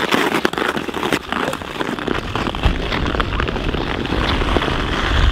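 Ice skate blades scraping on ice in quick, scratchy strokes as two skaters sprint off from a standing start. Wind rumbles on the microphone from about halfway through.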